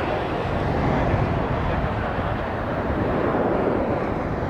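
Boeing 747-8 Freighter's four GEnx-2B turbofan engines on final approach, a steady jet roar as the airliner comes in low with landing gear down.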